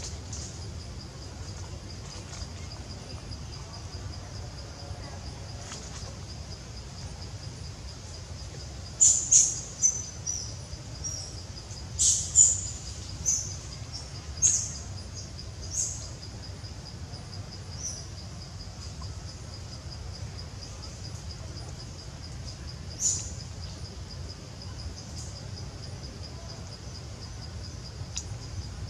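Insects trilling steadily in the background, with a run of short, loud, high-pitched chirps or squeaks about nine to sixteen seconds in and one more later.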